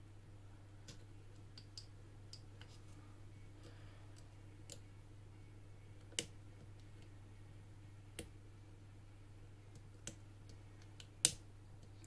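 Faint, irregular small metallic clicks of wire lock picks working the wafers of a Kromer Protector safe lock. A few sharper clicks come near the middle, and the loudest comes shortly before the end.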